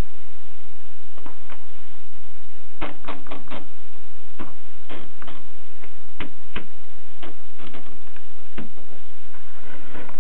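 Keys of a Rheinmetall manual typewriter striking in an irregular run of sharp clacks: a quick cluster about three seconds in, then single strikes spaced out, over a steady low hum.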